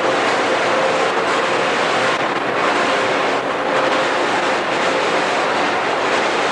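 Loud, steady din of factory-floor machinery in a hand-tool plant, an even roar with a faint steady hum.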